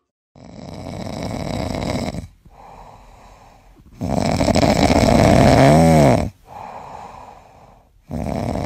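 Sleeping grey kitten snoring: three loud snores about four seconds apart with softer breaths between, the middle snore carrying a short whistling note.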